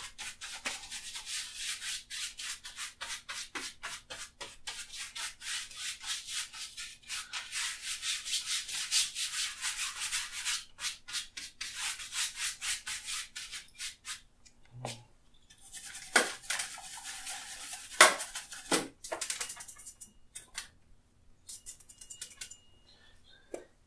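A wide bristle brush loaded with black oil paint scrubbing back and forth across a stretched canvas in quick short strokes, about four or five a second. After about 14 seconds the strokes thin out into scattered scrapes and a few knocks.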